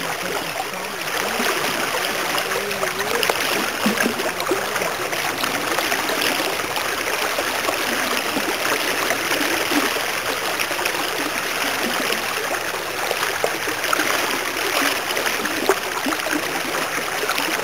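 Creek water flowing steadily over a shallow, rippling stretch: a continuous rushing hiss.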